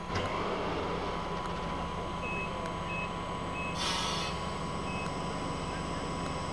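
DB class 114 electric locomotive standing at a platform with a steady electrical hum and whine. Short high beeps sound four or five times from about two seconds in, and a brief hiss of released compressed air comes just before four seconds.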